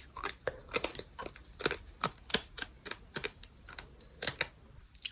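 Close-up chewing of gritty bird sand: a fast, irregular run of sharp crunches, several a second.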